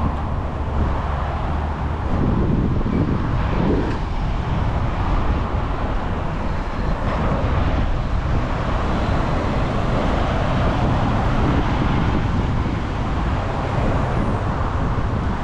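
Steady road traffic noise, a continuous rumble of passing cars.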